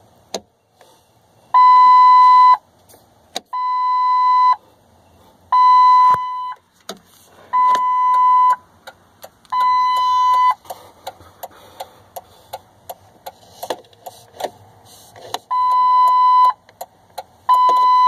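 The 2002 Ford F-350's electronic warning chime beeping in the cab: seven steady-pitched beeps, each about a second long and two seconds apart, with a pause of about five seconds in the middle. Short clicks fall between the beeps, thickest during the pause.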